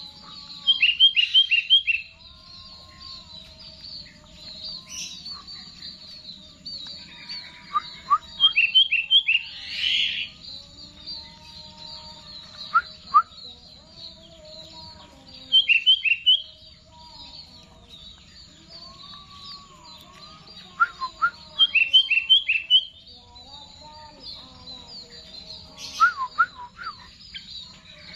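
Sooty-headed bulbul singing in loud short bursts of four or five quick, descending whistled notes, about five bursts spaced several seconds apart, over a continuous high twittering in the background.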